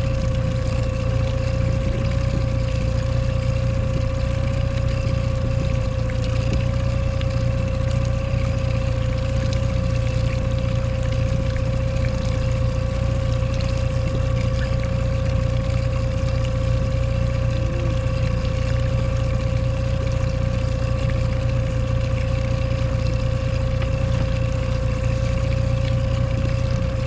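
Boat motor running steadily at trolling speed: a constant whine over a low rumble, unchanging throughout.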